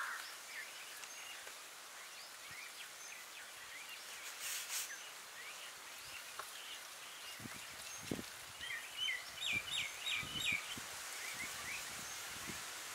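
Birds chirping, with a quick run of chirps about nine to eleven seconds in. About halfway through come soft crinkles and rustles of a banana leaf being handled and spread out.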